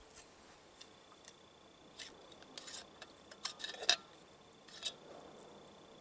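Scattered soft rustles and light clicks of a person shifting in a heavy wool blanket and handling gear, crouched on snow, with the busiest, loudest cluster about four seconds in. A faint, thin, steady high tone sounds underneath from about a second in.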